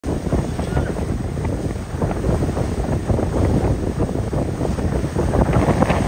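Heavy wind buffeting the microphone aboard a moving passenger ferry, over a low rumble of the ferry under way and sea water rushing past.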